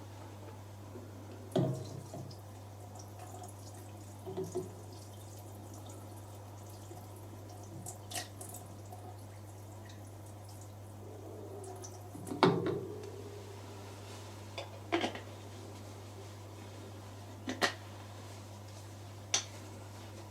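A few scattered light knocks and taps, with small wet, drippy sounds, over a steady low hum.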